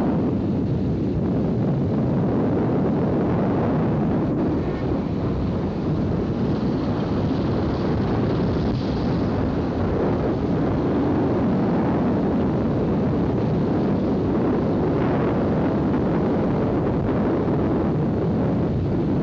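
Steady wind noise buffeting the microphone over the road and engine noise of a moving vehicle.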